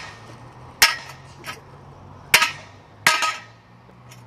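A few sharp clacks: one about a second in, a faint one soon after, one past two seconds, and one at about three seconds followed by a couple of quick smaller knocks, over a faint steady low hum.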